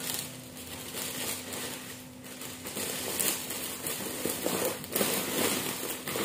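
Clear plastic bag and the snack packets inside it crinkling and crackling as the bag is handled and its top twisted closed, the crackling getting louder about halfway through.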